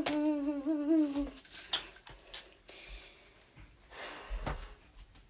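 A girl humming one wavering note for about a second and a half, followed by a few scattered soft knocks and thumps.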